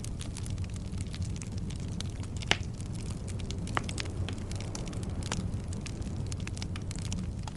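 Wood fire crackling in a fireplace: a steady low rumble of flames under a constant run of small snaps, with two louder pops about two and a half and four seconds in.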